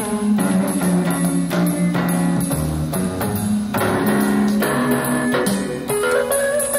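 Portable electronic keyboard playing sustained chords and melody notes over a steady drum beat.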